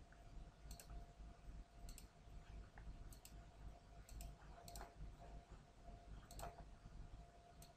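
Computer mouse clicking, about seven separate clicks a second or so apart, over a faint steady hum.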